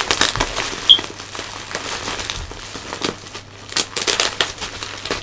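Bubble wrap and plastic packaging crinkling and crackling irregularly as it is handled, with a short high squeak about a second in.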